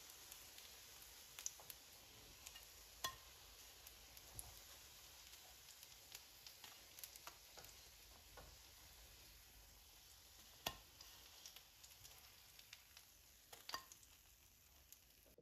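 Faint sizzling of pumpkin-and-cheese fritters frying in oil in a non-stick pan, with a scatter of sharp clicks and taps, the loudest about three seconds in, about eleven seconds in, and near the end.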